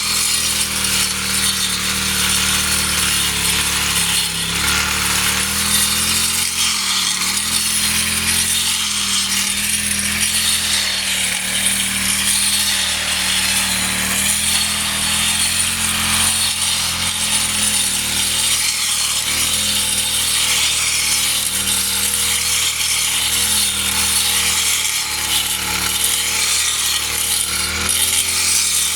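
Small engine-driven cutting machine running steadily at working speed, with a harsh cutting hiss over the engine note.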